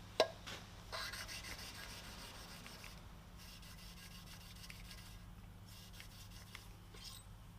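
A valve being lapped into its seat in a Cummins 12-valve diesel cylinder head: gritty rubbing of lapping compound between valve face and seat as the valve is twisted back and forth, in stretches of a second or two. A sharp click just after the start.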